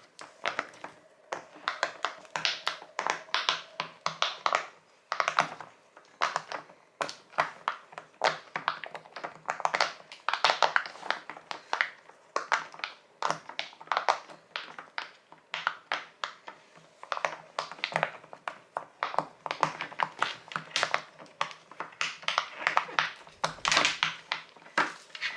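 Jumbo silicone pop-it fidget toy being popped: a long, irregular run of sharp pops, a few each second, as its bubbles are pressed through one after another.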